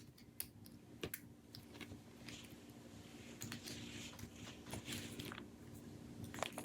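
Faint, scattered clicks and light rustling of small plastic and metal RC crawler parts being handled, over a steady low hum.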